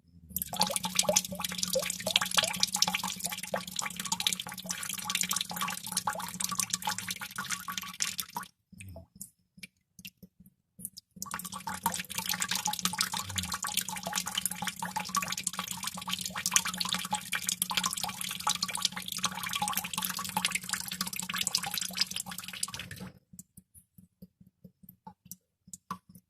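Water droplets dripping fast and densely, many small drips overlapping, with a pause of a few seconds in the middle where only a few single drips fall. Near the end it thins to a few separate drips.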